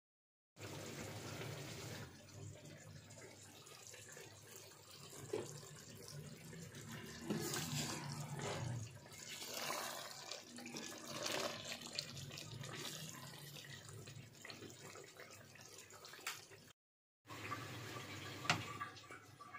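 Chicken curry gravy simmering in a pot while it is stirred with a wooden spatula, the spatula scraping the pot in irregular strokes.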